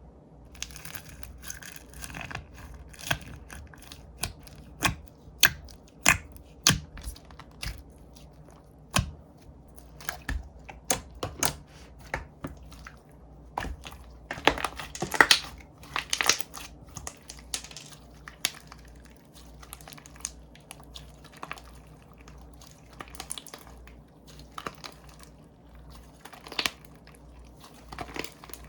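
Slime being squished and pressed by hand, giving irregular sharp pops and clicks, some in quick clusters, with crinkly squishing between them.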